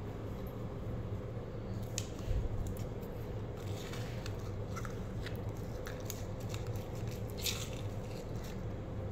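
Metal spoon scraping thick glitter slime out of a small plastic cup, with scattered sticky clicks, squishes and scrapes against the plastic, over a steady low hum.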